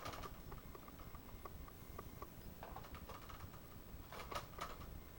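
Light, irregular clicks and taps of hard plastic toy parts being handled, with a small cluster of them about four seconds in.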